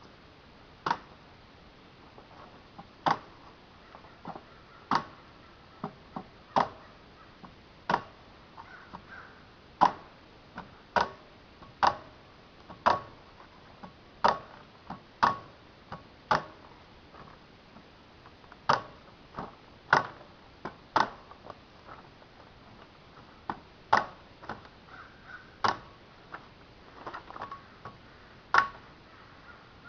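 Electric staple gun firing again and again, a sharp clack each time, about twenty shots at uneven intervals a second or two apart, as staples go through plastic sheeting into the wooden door frame.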